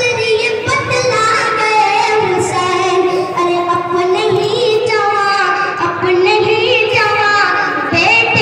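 A boy singing a naat, an Urdu devotional poem, into a microphone through a loudspeaker system, drawing out long, wavering melismatic notes.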